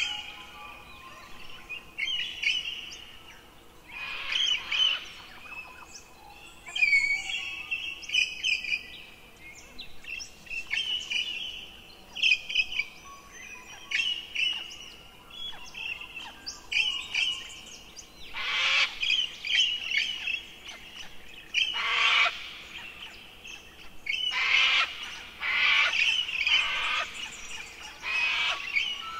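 Birds chirping and trilling in repeated short phrases, joined in the second half by several louder, harsher, raspy calls.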